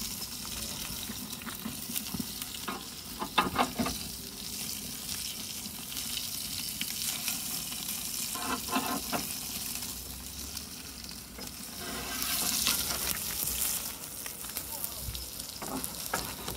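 Steak fat sizzling hard on a cast-iron Grizzler plate during a grease flare-up, with a steady hiss. A few metal clinks and scrapes come about three and a half and nine seconds in, as the plate is worked out of the oven. The hiss swells louder for a second or so about twelve seconds in.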